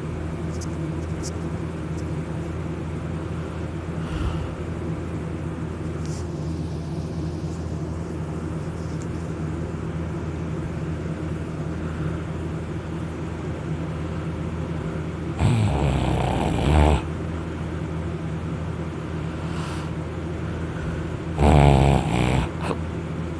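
A person snoring loudly in heavy sleep after drinking alcohol, lying on their back. There are two loud snores, each about a second and a half long and about six seconds apart, over a steady low hum.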